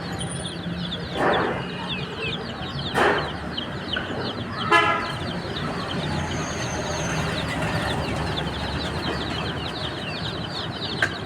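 A crowd of baby chicks peeping continuously, many short high chirps overlapping, over a low steady background rumble. A short honk stands out about five seconds in.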